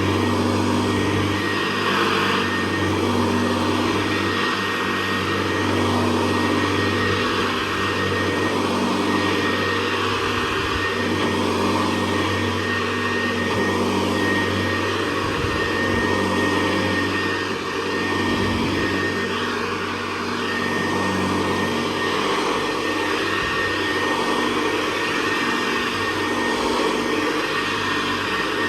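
1961 Hoover Convertible Model 68 upright vacuum cleaner running steadily while in use: a constant motor hum with a thin, high whine over it.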